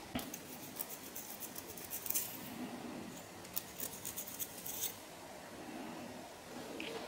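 Comb teeth scratching through hair and across a flaky scalp: quick runs of short, dry scraping clicks in bursts, dying away about five seconds in.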